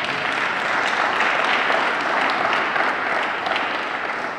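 An audience applauding with steady, dense clapping.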